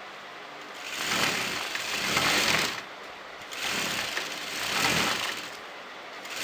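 Electric sewing machine stitching fabric, running in short spurts of about two seconds with brief pauses between them.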